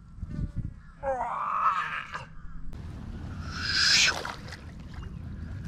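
A big Siamese carp is released into a muddy pond, with a splash of water at the bank just before the middle of the clip. Before it, from about one second in, there is a wavering buzzing tone.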